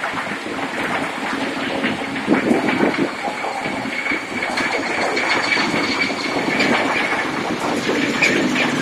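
A bicycle pedicab's sidecar frame rattling and clattering as it is pedaled through flood water. A faint steady whine sounds in the middle.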